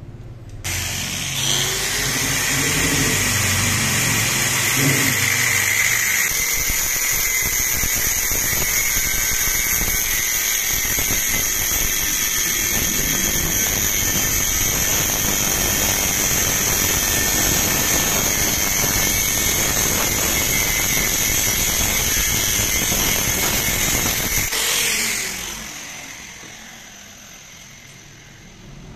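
Angle grinder with a cut-off disc spinning up and cutting into a steel tube, a steady high whine over the grinding. Near the end it is switched off and the whine falls away as the disc spins down.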